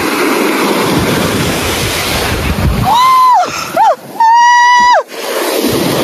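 Ocean surf breaking and washing up the beach, with wind on the microphone. About three seconds in, a high-pitched voice squeals three times, the last squeal held for almost a second and louder than the surf.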